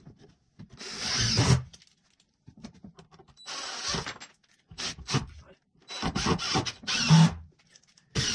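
Cordless drill driving screws through wooden blocking into the wall studs, in several short runs with pauses between.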